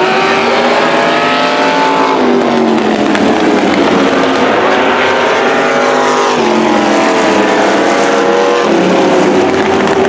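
Engines of several demo cars and pickup trucks racing around a speedway oval. Their pitches overlap and rise and fall as the drivers back off and accelerate through the turns, dropping about two seconds in and climbing again past the middle and near the end.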